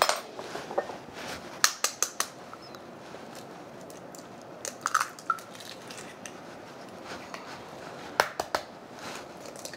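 Eggs being cracked and their shells pulled apart by hand over a glass mixing bowl: scattered sharp taps and small cracks of shell, in clusters about two seconds in, around five seconds in and again near eight seconds in.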